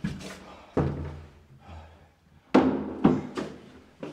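A run of heavy thumps and knocks, about five in all, the loudest cluster in the second half, each with a short room echo: a person climbing and bumping up through a narrow opening.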